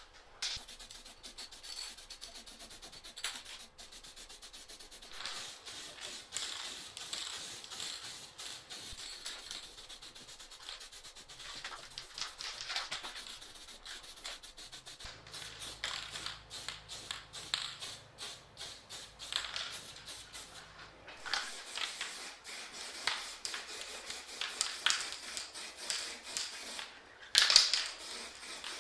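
Repeated, irregular rubbing and scraping strokes from hand work on a bike part, with a louder burst of scraping near the end.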